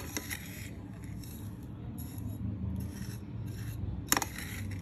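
Dry gujiya filling of grated coconut, chopped nuts and powdered sugar being mixed in a bowl: soft, repeated rubbing and rustling strokes, with a sharp click at the start and another about four seconds in.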